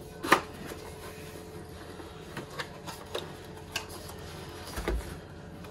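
Cardboard packaging being handled: light taps and scrapes as a small cardboard accessory box is lifted out of a carton and its lid opened, with a sharper knock just after the start and a soft thump near the end.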